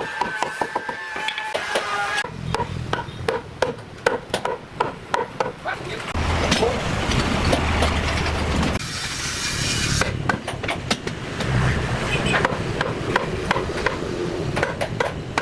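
Woodworking workshop noise: many sharp knocks and taps on wood, with a steady machine sound and low hum for about three seconds in the middle.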